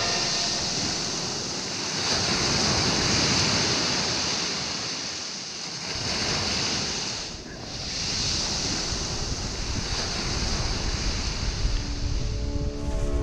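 Small waves breaking and washing up a sandy shore, swelling and easing in slow surges, with some wind on the microphone.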